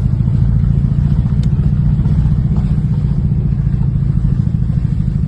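Mazdaspeed6's engine running as the car is driven, a steady low drone with road noise, heard from inside the cabin.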